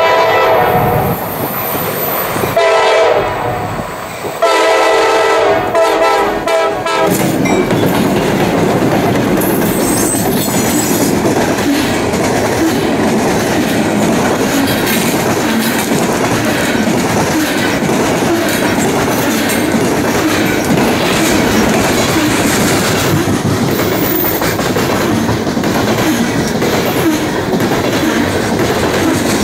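An EMD SD40-2 locomotive's Nathan K5LA five-chime air horn sounds several blasts as the train passes, the last ending about seven seconds in. After that, a long string of loaded coal hopper cars rolls past with a steady clickety-clack of wheels on the rail joints.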